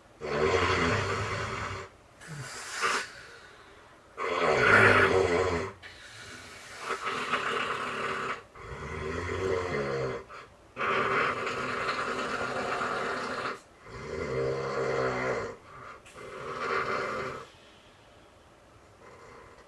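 A man snoring like an angry bear: about eight long, rasping snores a second or two apart, stopping near the end.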